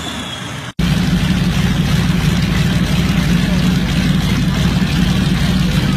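Lamborghini V12 engine in a custom-built motorcycle, running loud and steady with a fast, even firing pulse. It comes in abruptly about a second in, cutting off the quieter sound of the Scania DS14 V8 diesel in a Fordson tractor.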